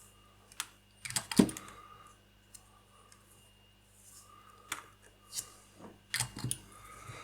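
Scattered small clicks and taps of plastic model-kit parts being handled and set against each other on the work surface, with a cluster about a second in and another near the end.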